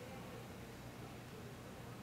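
Quiet room tone: a faint, steady background hiss with no distinct sound.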